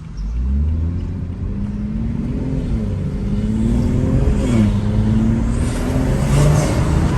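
High-horsepower BMW's engine pulling as the car drives, its pitch climbing and falling several times as it revs and shifts, with a sharp drop about four and a half seconds in. Road and wind noise grow louder toward the end.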